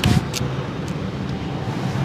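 Steady low rumble of passing street traffic, with a few sharp taps in the first half-second.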